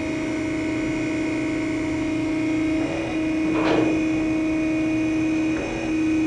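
Harig EZ-Surf surface grinder running with its hydraulic table reciprocating: a steady hum and whine. The hum shifts briefly twice, about three seconds apart, as the table reverses, and there is a short hiss near the middle.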